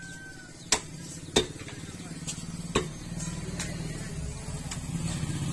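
A broad knife chopping raw chicken against a wooden stump block: three sharp chops, under a second in, near a second and a half, and near three seconds, with a few lighter knocks between. A motor vehicle's engine hums low underneath and grows louder toward the end.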